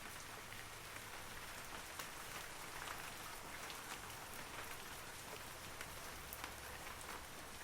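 Steady rain falling on forest trees, an even hiss with many separate droplet ticks scattered through it.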